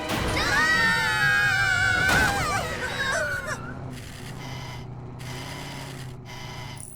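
Several high cartoon voices screaming together over background music for about three and a half seconds, then the music carries on more quietly over a low steady hum.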